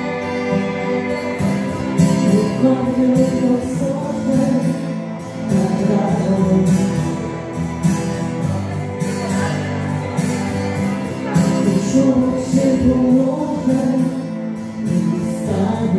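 Live band music, keyboard-style backing over a steady drum beat, with a voice singing into a microphone at times.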